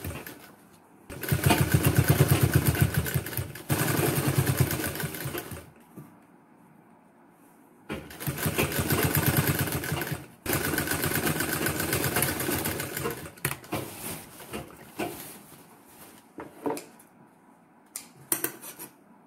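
Sewing machine running as it stitches fabric, in two runs of about four to five seconds each with a pause between. After it stops, short clicks and handling noises follow.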